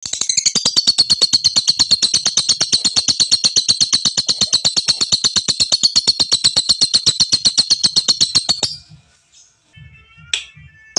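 Lovebird giving a long 'ngekek' chatter: a fast, even run of sharp, high notes, about ten a second, that stops suddenly after about eight and a half seconds. A short single call follows near the end.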